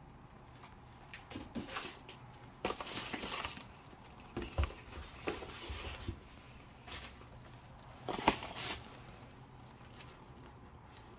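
Packaging being handled during an unboxing: intermittent rustling of plastic and cardboard with a few sharp knocks and clatters, the loudest about eight seconds in.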